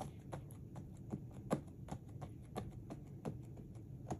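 Hands pressing and smoothing glued paper down onto a canvas: short, soft pats and rubs, irregular and about two a second.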